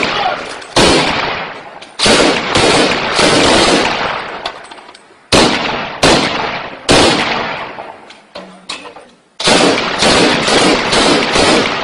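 Loud, close gunfire from an assault rifle: single shots and short bursts in three clusters, each shot trailing off in a long echo.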